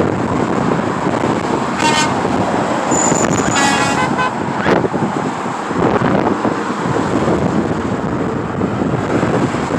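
Highway traffic rushing past with wind on the microphone, and a semi truck's horn sounding two short toots, about two and four seconds in, the second a little longer.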